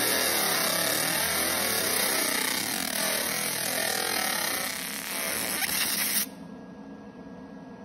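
Fiber laser marking machine engraving a black metal plate: a loud, steady, high hiss and crackle. It cuts off suddenly about six seconds in, leaving a quieter hiss with a faint steady tone.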